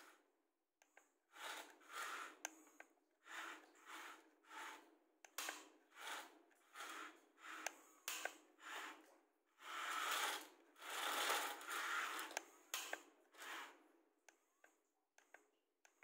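Small electric gear motors of a toy remote-control excavator running in short bursts, about one or two a second, as the arm and bucket move. Among the bursts are sharp clicks and the scrape of the bucket in sand. There is a longer run about ten seconds in, and only scattered clicks near the end.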